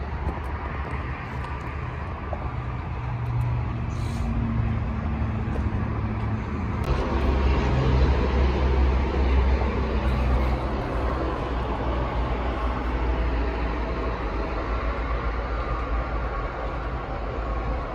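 Taylor TH350 forklift's 5.9 Cummins inline-six diesel running at a steady idle, heard from inside the cab as a low rumble that gets louder about seven seconds in.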